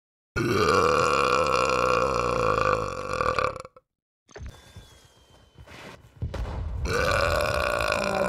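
A man belching loudly twice: a long, drawn-out burp of about three seconds, then after a pause a second long burp starting near the end.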